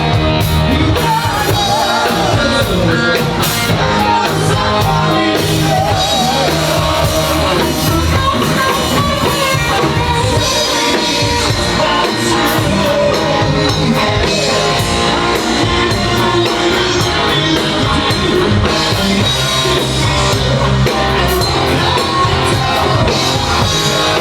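A live band playing rock music: a singer over drum kit, electric guitar and bass, loud and steady throughout.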